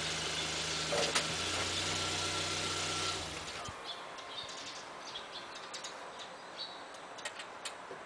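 Hyundai Kona's engine idling steadily, with a sharp click about a second in. The engine is switched off about three and a half seconds in, leaving faint outdoor ambience with a few short high chirps.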